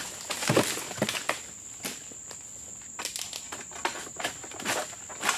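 Egrek pole sickle working at the base of oil palm fronds: irregular rustling, cracking and scraping of dry fronds against the steel blade and pole, with a few heavier knocks.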